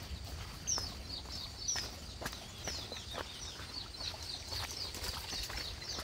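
Footsteps on a trail, with small birds calling in many short falling chirps that come faster toward the end, over a steady high-pitched tone.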